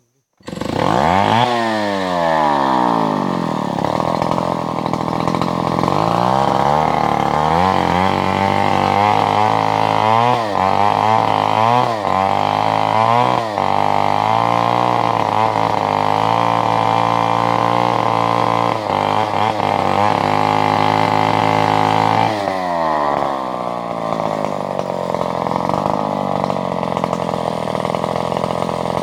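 Chainsaw engine bursting into life and revving up sharply. It runs at high speed with the revs rising and falling repeatedly, then drops to a lower, steadier speed about 22 seconds in.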